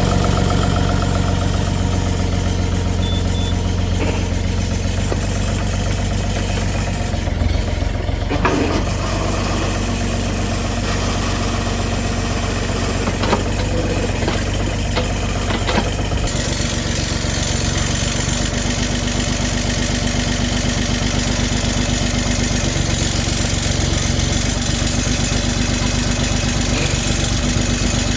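Bobcat E35 mini excavator's three-cylinder Kubota diesel running steadily, with a few clunks from the machine as the bucket is raised and the controls are locked out. About halfway through, the sound changes as a higher steady tone joins the engine.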